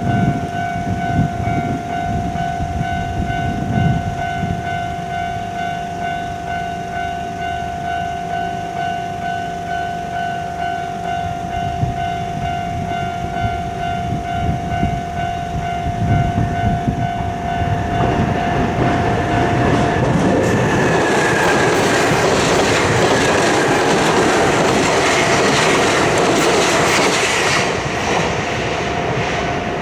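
Japanese level-crossing warning bell on the Nankai Main Line, ringing steadily as a single high clanging tone. From about 18 seconds in, a train passing over the crossing rises into a loud rush of wheel and running noise that drowns out the bell for about ten seconds. It falls away near the end, and the bell is heard again.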